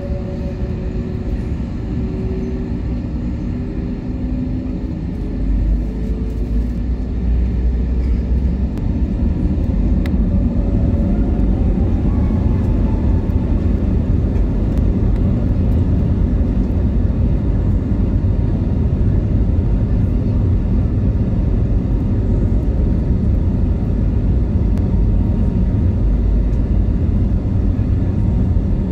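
Airbus A320neo's Pratt & Whitney PW1100G geared turbofan engines spooling up to takeoff thrust, heard from the cabin over the wing. Their tones glide upward and the sound grows louder about six to eight seconds in, then settles into a steady loud rumble of the takeoff roll up to rotation.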